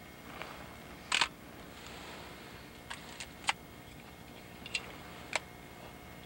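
Handheld camcorder handling noise: a handful of short sharp clicks and taps, the loudest about a second in, over a steady faint hiss.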